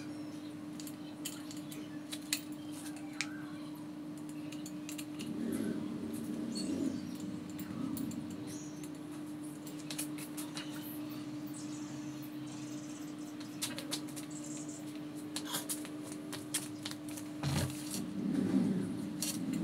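Light clicks and small rattles of hands working at a Yamaha Serow 250 motorcycle's handlebar controls, over a steady hum. A thump near the end.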